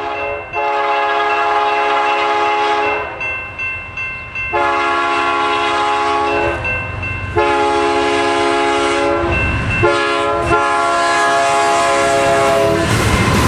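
Diesel freight locomotive's multi-chime air horn sounding a series of long blasts for a grade crossing, four blasts with short gaps between them. Engine rumble and wheel noise swell near the end as the locomotives pass close by.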